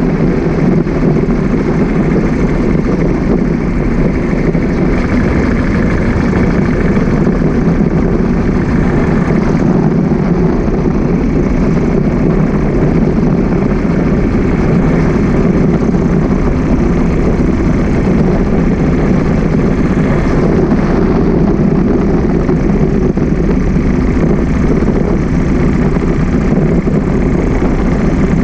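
Steady wind rush on the microphone with road and engine noise from a motorbike riding along a city road.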